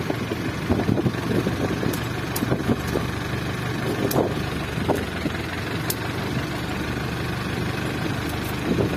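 A wooden fishing boat's engine running steadily under way, with a rushing noise over it.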